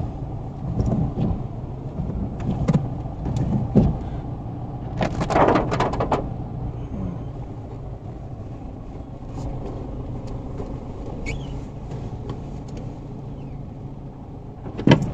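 Inside a car in heavy rain: a low steady engine hum, with rain on the body and windshield, scattered knocks, and a louder rush of noise about five seconds in.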